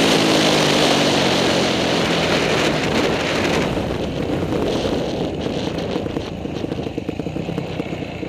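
Motocross bike engine heard from a helmet-mounted camera, its pitch falling as the throttle is rolled off, under wind rush on the microphone. A little under four seconds in, the wind noise drops away and the bike carries on at low revs, quieter.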